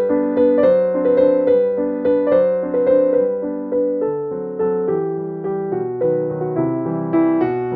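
Background piano music: a gentle melody of evenly struck notes.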